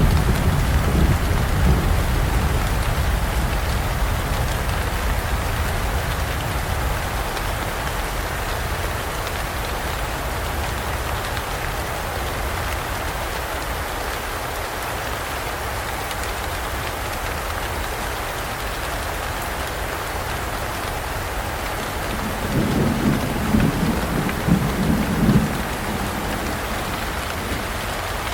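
Heavy rain falling steadily, with thunder rumbling at the start and dying away over several seconds. Another low roll of thunder comes near the end.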